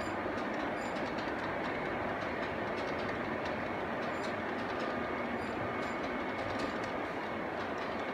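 G-scale model trains rolling steadily along the layout's track: a continuous wheel-on-rail rumble with irregular light clicks from the wheels crossing rail joints.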